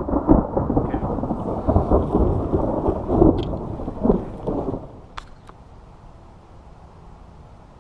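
Loud low rumble of a thunderstorm that lasts about five seconds, then falls away to a quieter steady background noise with a couple of faint clicks.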